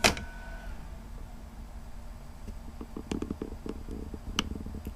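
Light clicks and taps from handling small laptop parts during disassembly: one sharp click at the start, then a run of small ticks and taps from about three seconds in, over a faint steady low hum.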